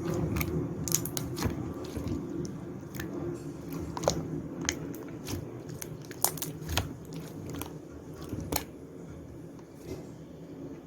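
Clay-mixed slime being pressed and squished by hand, giving irregular sharp pops and clicks, over a steady low background hum.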